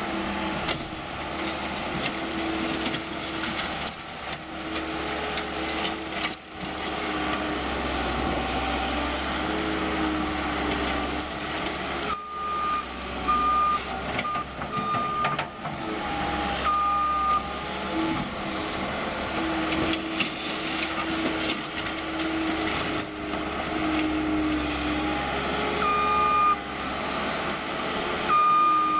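New Holland L230 skid steer loader's diesel engine running, its speed rising and falling as the machine works. Its reversing alarm beeps in runs of short high beeps, once midway and again near the end.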